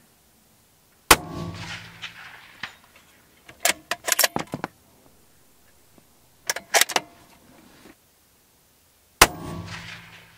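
Two shots from an unsuppressed bolt-action precision rifle fired inside a pickup truck's cab, about eight seconds apart. Each is a sharp crack with a ringing, echoing tail. Between the shots come two runs of sharp metallic clicks as the bolt is cycled.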